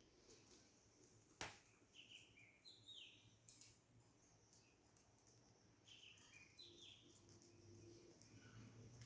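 Faint chirps of budgerigars in short scattered calls, coming in two little clusters, with a single sharp click about a second and a half in.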